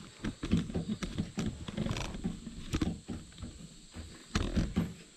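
A series of irregular knocks and thumps, some sharper and clicking, with short quieter gaps between them.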